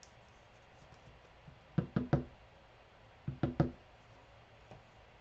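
Knocking: two quick sets of three knocks, about a second and a half apart.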